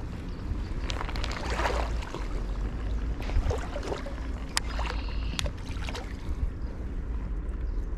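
Creek water sloshing and swishing around a wading angler, over a steady low wind rumble on the microphone, with a few sharp clicks about halfway through.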